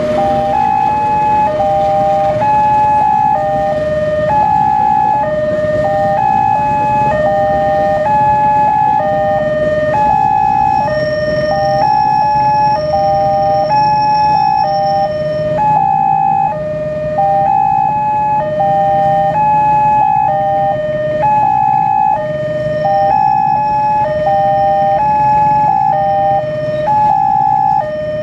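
Indonesian railway level-crossing warning alarm sounding without pause, a loud electronic two-tone signal alternating high and low. Under it is the low, steady noise of a train passing over the crossing.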